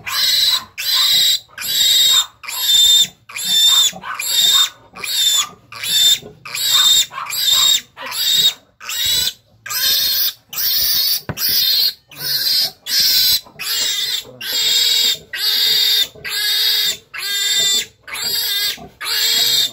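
Three-day-old piglet squealing loudly over and over, about one and a half piercing squeals a second with short breaks for breath. It is a distress squeal, from being held and restrained for an iron injection.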